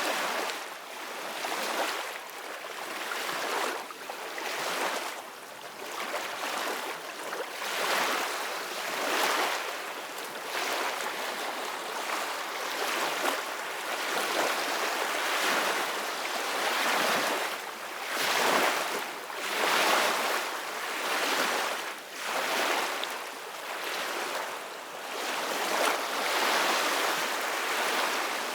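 Ocean waves breaking on a beach, a steady hiss of surf that swells and ebbs every second or two.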